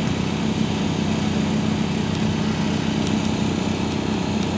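Small engine running steadily at a constant speed, an even low hum that neither rises nor falls.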